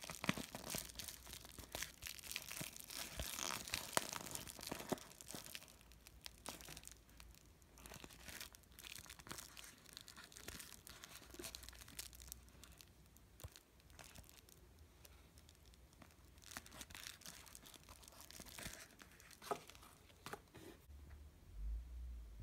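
Thin plastic film of a deflated inflatable ball crinkling and crackling as it is unfolded by hand: dense crackling for the first several seconds, then sparser crinkles. A few sharper clicks and a low thud come near the end.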